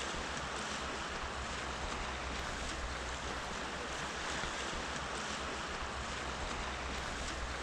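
Steady rushing of a fast river running high.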